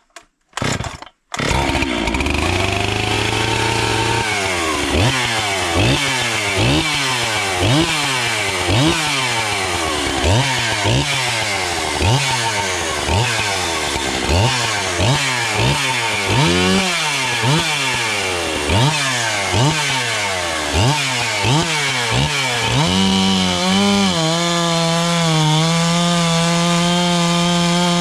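Large chainsaw pull-started with the choke on, catching after a couple of short pulls about a second in. It runs steadily at first, then is revved up and down in quick repeated blips about once a second, and is held at steady high revs for the last few seconds.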